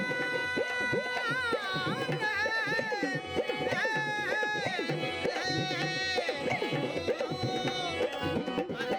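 Rajasthani Manganiyar folk music performed live: a male voice sings a gliding, ornamented melody over a steady held drone, with a hand drum keeping a steady beat underneath.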